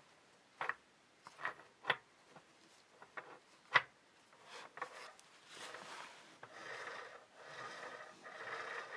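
Several sharp knocks and clicks, the loudest about four seconds in, followed by a few seconds of rubbing and scraping, as from small parts being handled on a workbench.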